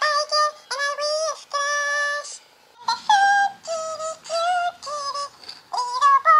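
Siamese kitten meowing over and over in a fast run of high, drawn-out meows, about a dozen in all, some bending up and down in pitch, with a short break about two and a half seconds in.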